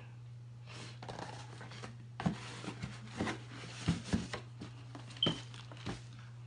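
Cardboard shipping box and a paper-wrapped shoe box being handled: scattered light knocks, scrapes and paper rustle as the shoe box is gripped and lifted out of the carton, with one short squeak about five seconds in. A steady low hum runs underneath.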